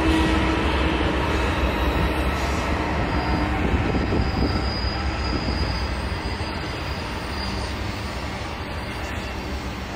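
Double-stack intermodal container train rolling past on well cars: a steady rumble of steel wheels on rail, with a faint high wheel squeal near the middle. The sound slowly fades.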